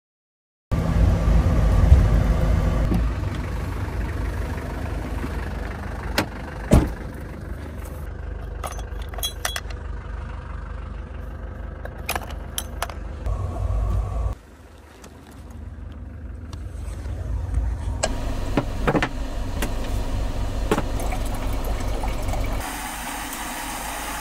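Truck running, heard from inside the cab: a steady low engine and road rumble, with scattered clicks and knocks from about six to thirteen seconds in. The rumble drops away about fourteen seconds in and comes back, then near the end gives way to the steady hiss of a Snow Peak GigaPower canister stove burning.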